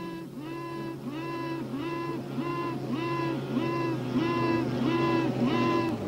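Queen honeybee piping: a run of short, clear tooting notes, about two a second, each rising briefly at its start and falling off at its end, over a steady low hum. This is the piping of a newly emerged virgin queen announcing herself to rival queens still in their cells.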